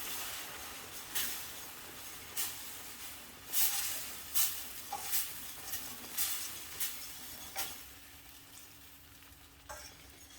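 Flour-and-butter roux sizzling in a hot pan as chicken broth is stirred in, with a utensil scraping and knocking against the pan every second or so. The sizzle dies down toward the end.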